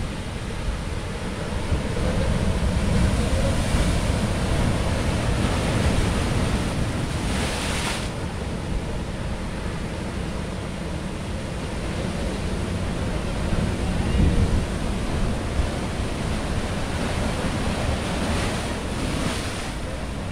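Sea waves washing on a rocky shore, with wind rumbling on the microphone. A wave hisses in more brightly about seven seconds in, and again near the end.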